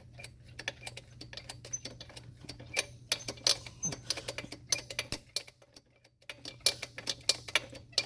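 Irregular light clicks and ticks of a wrench and hands working at a motorcycle rear brake caliper's bleeder screw during bleeding, over a steady low hum.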